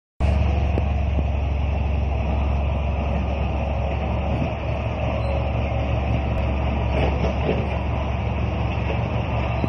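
Bulldozer's heavy diesel engine running steadily with a deep drone as the machine drives.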